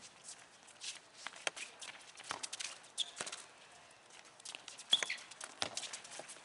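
Sneakers scuffing and patting on a concrete court, with sharp knocks of a soccer ball being kicked, the loudest about five seconds in. A couple of short high squeaks come through near the middle and again about five seconds in.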